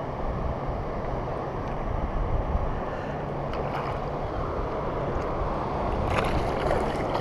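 Steady wind rumbling on the microphone, with water washing at a rocky shoreline. A few brief splashes near the end as a hooked fish is brought to the bank.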